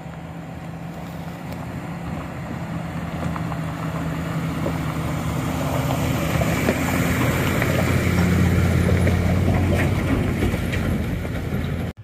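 A heavy pickup truck towing a loaded trailer pulling up a steep gravel hill under load, its engine running steadily and getting louder as it approaches and passes close by, then cutting off suddenly near the end.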